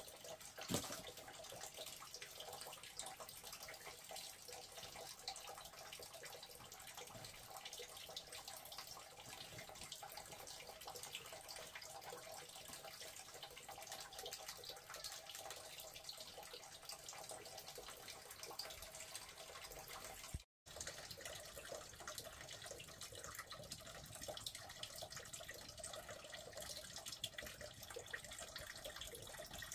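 Running water trickling and splashing steadily, with one sharp knock about a second in and a momentary cut-out about two-thirds of the way through.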